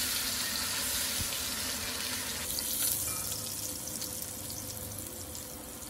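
Beef short ribs sizzling as they sear in hot oil and their own rendered fat in a Dutch oven while being turned with tongs. The sizzle is loudest at the start, eases off, and rises again briefly about three seconds in.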